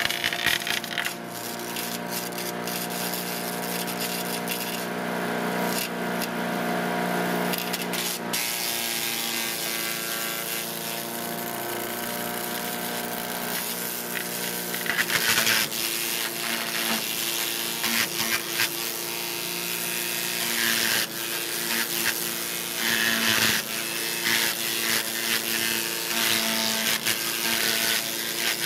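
Cub Cadet CS 3310 gas chipper shredder's engine running steadily under load, with irregular bursts of crackling and grinding as yard waste is fed in and shredded.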